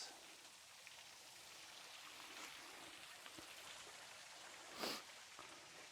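Faint, steady hiss of a small creek's running water below a low-flowing waterfall. About five seconds in there is a short soft noise.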